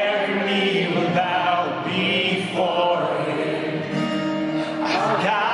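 A large crowd of worshippers singing a worship song together, many voices at once.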